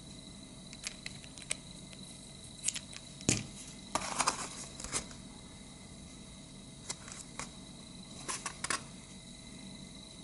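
Handling noise as a small plastic bottle and a cardboard box are picked up and turned over in the hands: scattered clicks, taps and rustles, with a sharp knock about three seconds in and a busier stretch of rustling just after.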